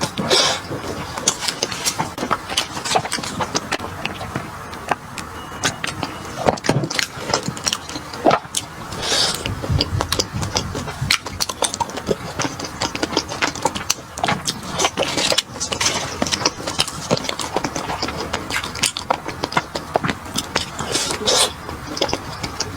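Close-up eating sounds: chewing with many irregular short crunches, smacks and clicks, going on without pause.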